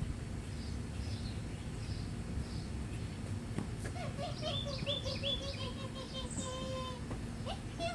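A bird singing: faint high chirps at first, then from about halfway a run of short repeated notes ending in one long held note, over a steady low rumble of outdoor background noise.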